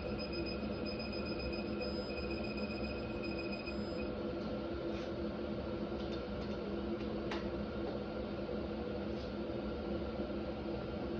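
Steady workshop hum with a thin, high, continuous electronic tone that stops about four seconds in, then a few faint clicks.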